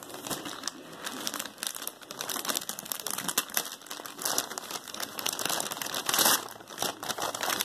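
Shiny foil gift wrap being torn and crumpled by hand, a dense run of crinkling and ripping, loudest about six seconds in.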